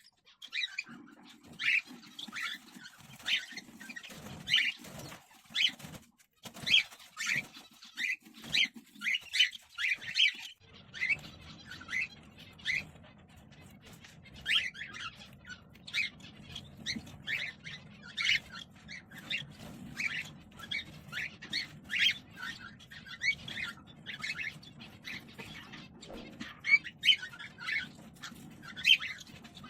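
Cockatiels chirping in a nest box: a steady run of many short, sharp chirps with no long pauses. A low, steady hum comes in about a third of the way through.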